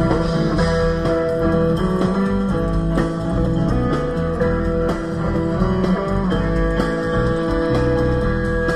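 Background music led by plucked guitar, playing steadily.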